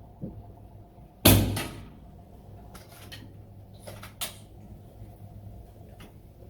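Skout Epoch PCP air rifle firing a single shot, a sharp report about a second in. Several lighter clicks follow over the next few seconds, typical of the action being worked to load the next pellet.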